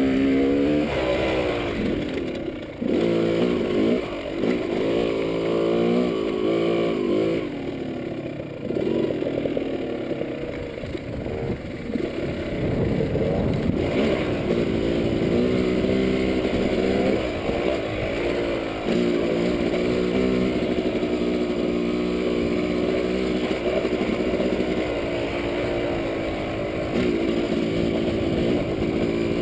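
Yamaha dirt bike engine running under the rider on a trail, revving up and down with the throttle. It eases off briefly a few seconds in and again about eight seconds in, then holds a steadier speed.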